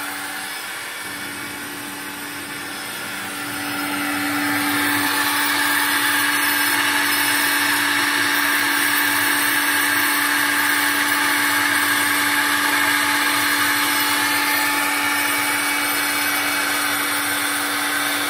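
High-speed spindle of a desktop PCB drilling and milling machine running steadily while it cuts a copper-clad circuit board. It grows louder about four seconds in, then holds an even, high whirring hum.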